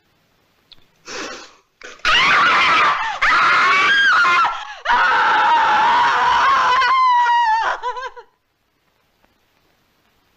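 A woman screaming: a short gasp about a second in, then two long, high screams from about two seconds, the second wavering and breaking off about eight seconds in.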